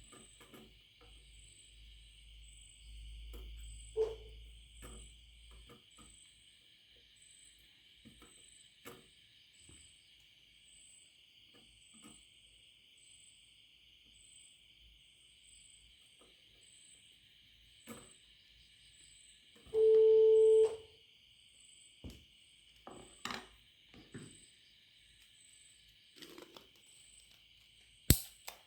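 Scattered small clicks and taps of soldering work over a faint, steady, high chirring with soft pulses a little more than once a second. About two-thirds of the way in, one loud electronic beep sounds for under a second; a sharp click comes near the end.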